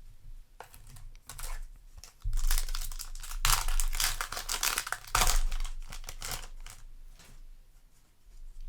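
Yu-Gi-Oh! foil booster pack wrapper crinkling and tearing as it is opened, in several bursts of rustling over a few seconds that then die down.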